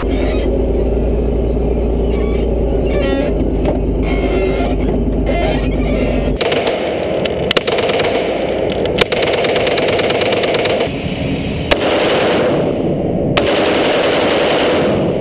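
A tank's engine running with a steady low rumble as the tank rolls over a car. About six seconds in, it cuts to long bursts of rapid automatic gunfire on an indoor range, with a short pause partway through.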